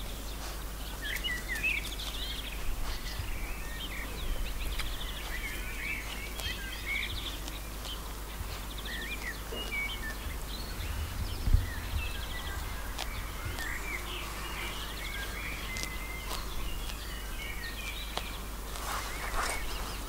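Songbirds singing and chirping throughout, many short calls, glides and trills overlapping, over a steady low rumble, with a single low thump about halfway through.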